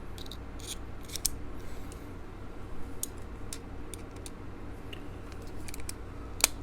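Scattered small, sharp metallic clicks and ticks as a folding pocket knife and its small screwdriver are handled during reassembly, with one louder click near the end.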